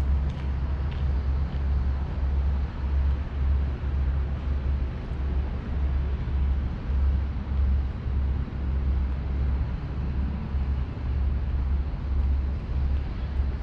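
Outdoor city ambience with steady road traffic noise, under a low rumble that pulses about twice a second.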